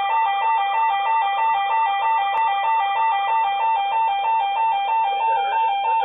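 Several weather alert radios sounding a warning alarm together for a winter storm warning. A steady NOAA Weather Radio 1050 Hz warning tone runs under a two-tone alarm that alternates about three times a second. A voice announcement starts under the alarms about five seconds in.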